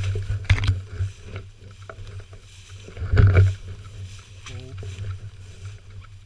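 Tall dry grass and brush swishing against legs and clothing as a person wades through a field on foot, over a steady low rumble of movement on the microphone. Two louder rustles come about half a second and about three seconds in.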